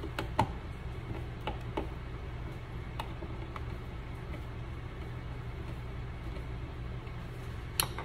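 Scattered light clicks and ticks of a hand screwdriver working the screws of a wall light switch, over a steady low hum, with a sharper knock near the end.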